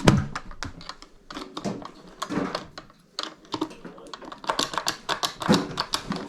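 A metal key rattling and clicking in a lock as someone jiggles it, trying to turn it: the key won't work.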